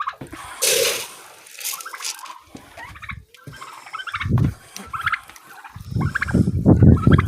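Backyard turkeys and other poultry calling, short repeated calls scattered throughout. Wind rumbles on the microphone near the end.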